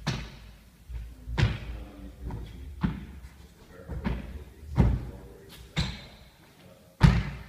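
Hands and feet thudding on a wooden squash-court floor during repeated burpees, a landing every second or so, echoing off the court walls. The loudest thud comes near the end.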